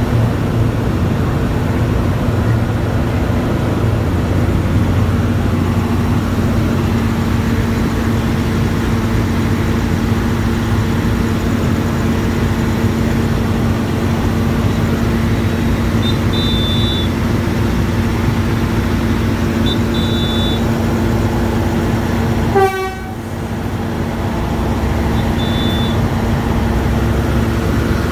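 Diesel train engine running close by, a steady low drone. Short high squeaks come three times in the second half. About two-thirds of the way through, the sound breaks off abruptly and comes back a little quieter.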